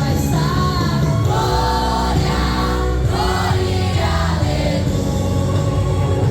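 Youth vocal group singing a gospel song in several voices over instrumental accompaniment with a steady bass.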